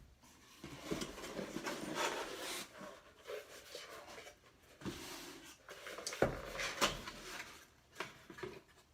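Packing material rustling and rubbing as items are handled and unwrapped from a box, with a few light knocks.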